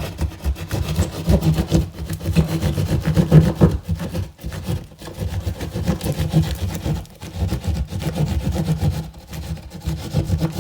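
Pointed hand drywall saw cutting downward through Sheetrock in quick back-and-forth strokes: a continuous rasping sawing.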